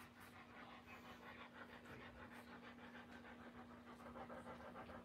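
Doberman dam panting quickly and evenly, faint, with a faint steady hum beneath; rapid panting like this is typical of a bitch in the middle of whelping.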